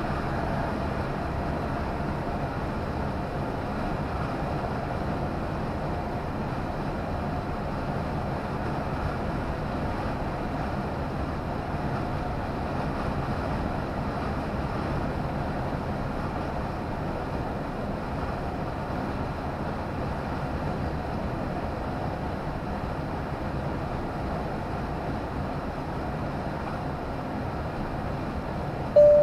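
Steady engine and road noise inside a lorry cab cruising at motorway speed, with a faint steady whine. Right at the end comes a short, loud beep.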